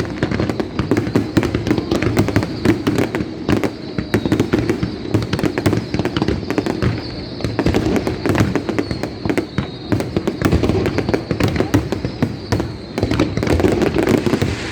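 Fireworks display: a dense, continuous barrage of bangs and crackling pops from bursting shells, with no let-up.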